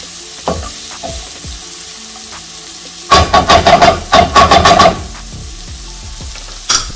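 Diced onion, garlic and red bell pepper sizzling in olive oil in a skillet, stirred with a wooden spatula. From about three to five seconds in comes a quick run of loud clacks and scrapes of the spatula against the ringing pan, and there is one more knock near the end.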